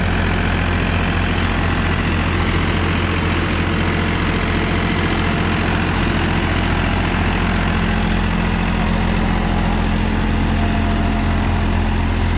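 Powertrac Euro 50 tractor's 50 hp diesel engine running steadily at about 1800 rpm in low first gear, driving an 8-foot rotavator through the soil. The engine holds an even note and runs light, not strained by the rotavator.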